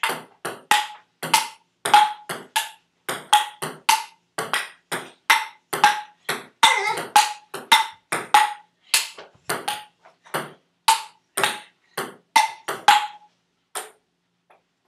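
Table tennis rally: a celluloid ball clicking back and forth off paddles and the table, about two hits a second, each with a short ring. The rally stops about thirteen seconds in.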